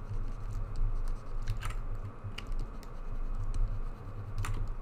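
Stylus scratching across a pen drawing tablet during sculpting strokes, with a few sharp clicks, over a low steady hum.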